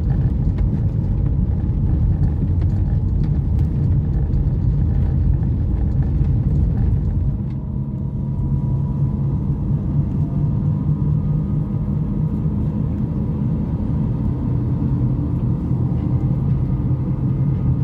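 Car interior road noise: tyres drumming over cobblestones with a low rumble. About seven and a half seconds in, the road changes to asphalt and the sound turns smoother and a little quieter, leaving a steady hum of engine and tyres.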